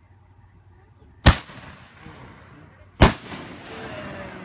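Two aerial firework shells bursting, two sharp bangs about two seconds apart, each trailing off in an echo.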